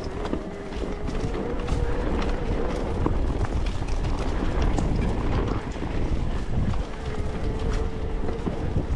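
Electric-assist mountain bike ridden over rough ground: a steady motor whine under a low wind rumble, with rattling and ticking from the bike over the bumps.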